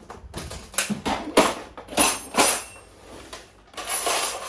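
Metal wrenches clinking and knocking as they are handled and set into a wrench-holder tray: a string of sharp knocks, then a denser metallic rattle near the end.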